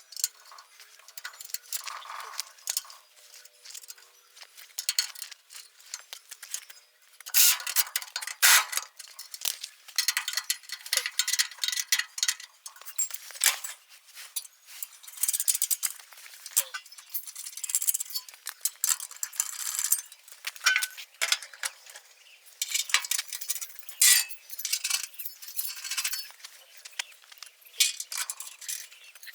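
Irregular metallic clinks, taps and rattles, many in quick succession and loudest from about seven seconds in, as of tools and metal machine parts being handled.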